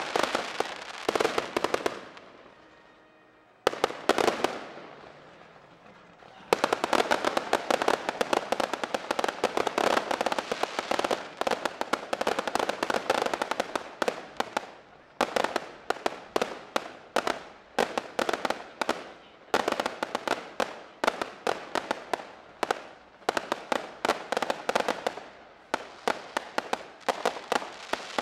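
Aerial fireworks display: volleys of sharp bangs and rapid crackling, with a short pause a couple of seconds in, then a long dense crackling barrage, then clusters of bursts coming about once a second.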